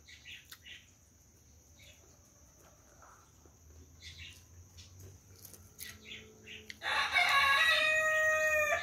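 Faint crunching as a crispy fried flatbread is chewed, then about seven seconds in a rooster crows once, a loud crow lasting about two seconds.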